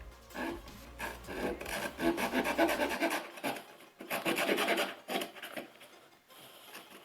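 Leatherman Super Tool 300 multi-tool's saw blade cutting wood in quick back-and-forth strokes, in several runs with short pauses between.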